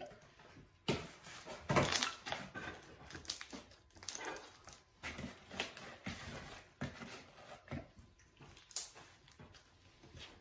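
Hands squeezing, stretching and kneading freshly activated glue slime, with irregular sticky squelches and crackles and soft pats against the tabletop.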